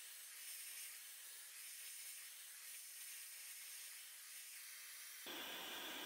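Faint, steady hiss of air from a Dyson Supersonic hair dryer blowing on hair. About five seconds in, a slightly louder, duller hiss takes over.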